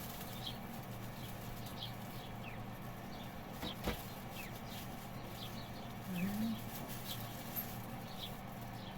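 Small birds chirping, short high chirps about twice a second, over a steady low hum. A single sharp click near the middle and a brief low call about six seconds in.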